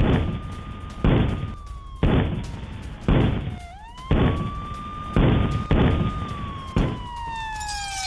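A siren wailing, its pitch sliding slowly down and back up, over a run of heavy booms about once a second.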